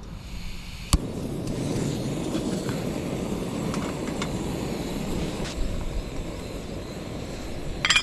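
Screw-on gas canister camping stove lit with a sharp click about a second in, then the burner's steady rush of flame under the pot. A short rattle of clicks near the end.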